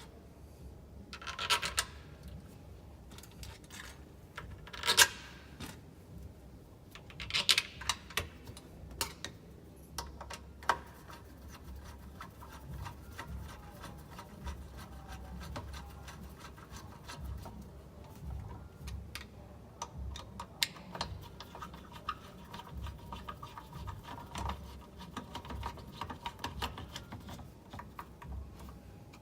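Hands working on a Makita 5704R circular saw during an armature replacement: rubbing and scraping with many small scattered clicks, and a few louder sharp knocks in the first eight seconds.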